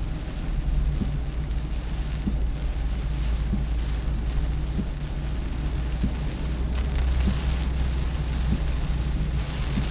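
Car driving in rain as heard inside the cabin by a dashcam: a steady low drone of engine and road with an even hiss of rain, and a soft knock recurring about every second and a quarter.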